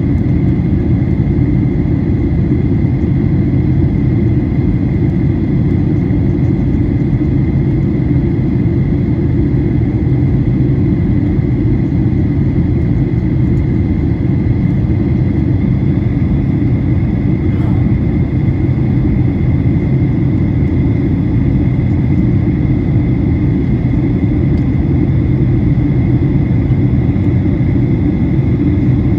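Steady cabin noise inside a Boeing 737-900ER in flight: a deep, even rumble of airflow and its CFM56 jet engines, with a thin steady whine above it.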